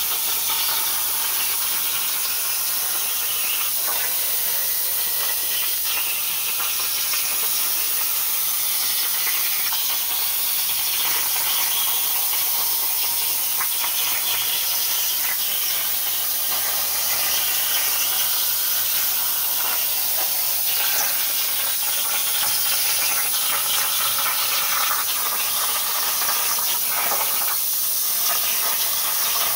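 CNC plasma cutter cutting sheet steel: the steady high hiss of the plasma arc and its compressed air, running without a break as the torch follows the cut.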